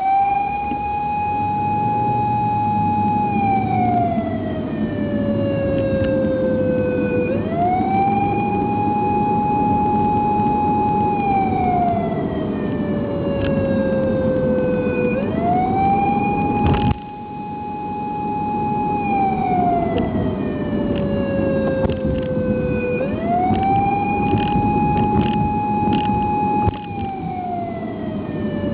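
Emergency-vehicle wail siren played by a siren app on an 8-second cycle: the tone rises quickly, holds high for about three seconds, then slides slowly down, and the cycle repeats, over a steady noise. A sharp click comes twice, the level dipping briefly after each.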